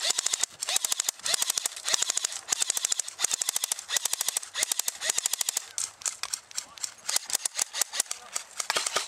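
Airsoft guns firing rapid full-auto strings of shots, several overlapping, with only brief pauses between bursts.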